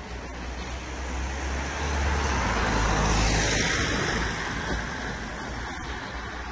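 A road vehicle passing by, its noise swelling to a peak about three seconds in and then fading, over a steady low rumble.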